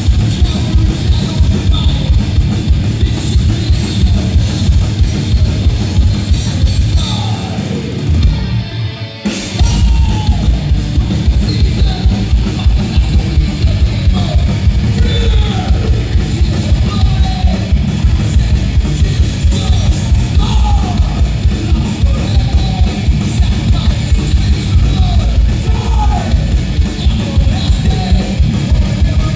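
Thrash metal band playing live: distorted electric guitars, bass and drums at full volume, with a short break about nine seconds in before the band comes back in. After the break a lead line with bending notes runs over the rhythm.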